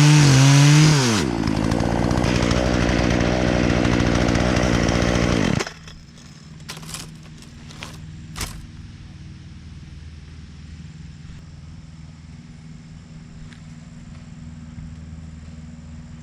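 Two-stroke chainsaw at full throttle, its engine note dipping and recovering under load as it cuts through wood. A little over five seconds in the throttle is released and the saw drops to a steady idle for about ten seconds, with a few light knocks. The engine cuts off at the very end.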